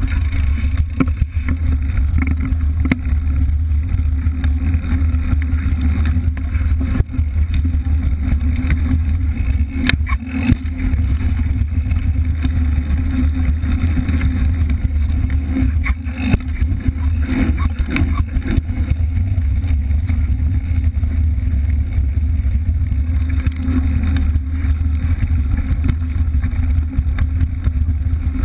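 Mountain bike rolling over a dirt track, heard from a camera mounted beside the rear tire: a loud, steady rumble of tire and wind on the microphone, with scattered knocks and rattles from bumps in the trail.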